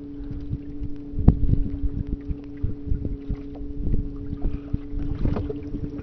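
Small boat's motor running with a steady, even-pitched hum, while wind buffets the microphone in irregular low rumbles and thumps.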